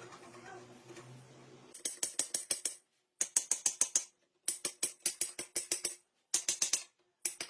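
Hand ratchet wrench clicking in quick runs, five bursts of about ten clicks a second, as a fastener is worked.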